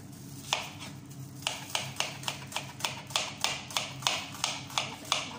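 A quick, regular run of light, sharp taps, about three to four a second, starting about a second and a half in, over a steady low hum.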